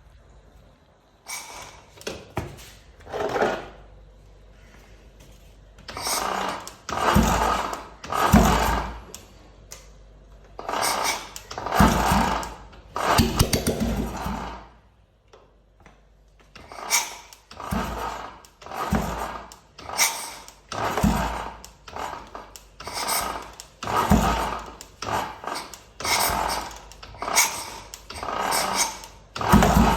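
Hand tools working on a motorcycle engine: a long run of scraping and clinking, metal rubbing on metal, in short strokes that come about once a second in the second half.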